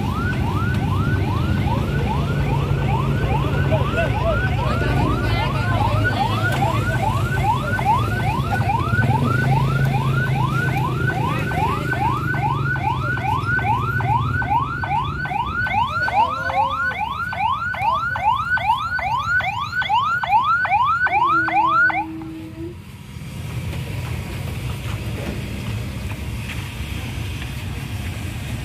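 A hearse's electronic siren sounding in quick falling sweeps, about three a second, over the low running of motorcycle engines. The siren cuts off suddenly a little past twenty seconds in, leaving only the low engine noise.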